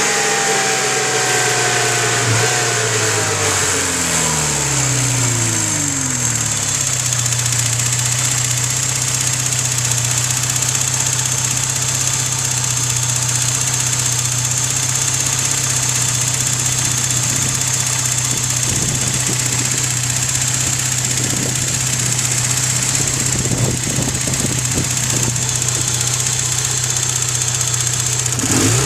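Porsche 944 Turbo's turbocharged four-cylinder engine falling from a rev back to a steady idle over the first several seconds, then idling, with a constant high-pitched turbo whine on top; the revs start to climb again at the very end. The owner takes the whine for an out-of-balance turbocharger, from debris buildup or a broken fin.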